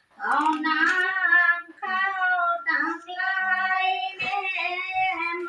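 A high voice singing a slow melody in long held notes, phrase after phrase with short breaks between.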